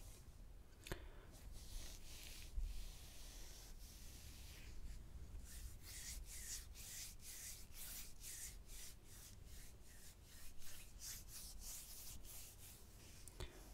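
Close-miked rubbing on an ASMR item. At first it is a soft, drawn-out scrape, then from about halfway it becomes a steady run of short, crisp strokes at about two a second.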